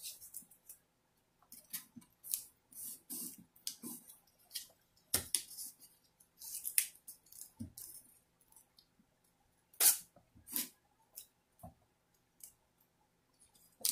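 Blue painter's tape being handled and pressed down over a clock's glass face: irregular crinkling and sharp little clicks and crackles, a few louder snaps about five seconds in and near ten seconds.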